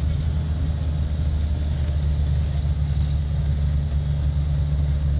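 Suzuki Carry 1000's four-cylinder engine running steadily in second gear as the van climbs, a low even drone heard from inside the cab along with road noise.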